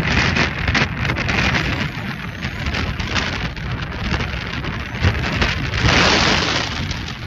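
Strong gusting wind buffeting the microphone, with the nylon rain-jacket hood rustling and flapping close by; a stronger gust comes near the end.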